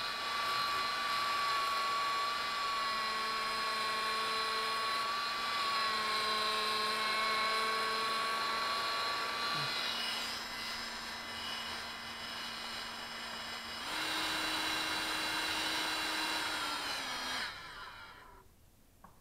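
EMAX 2204 brushless outrunner motor spinning under power with a steady high whine, a file held against its spinning aluminium bell to shave it for balancing. The pitch steps up about fourteen seconds in, then the motor spins down and stops near the end.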